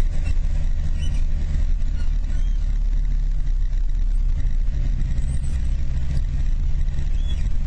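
Car engine running while driving, a steady low drone with road and wind noise, heard from inside the cabin.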